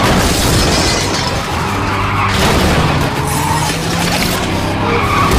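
Two cars racing side by side on loose dirt, a Chevrolet Monte Carlo and a Dodge Viper, their engines running hard under load while the tyres skid and spin through the dirt.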